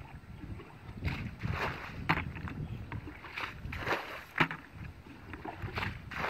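Irregular splashing and sloshing of shallow muddy water, a splash every half second to a second.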